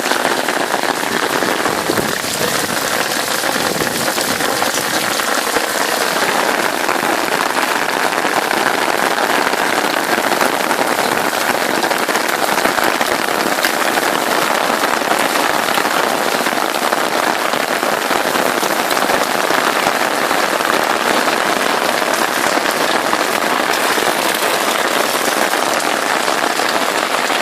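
Heavy rain pouring steadily, a dense, even patter drumming on an umbrella overhead.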